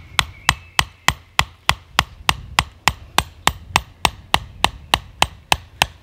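Hatchet striking the flat top of a carved wooden stake, driving it into soft ground: a steady run of quick, even knocks, about three a second, that stops just before the end.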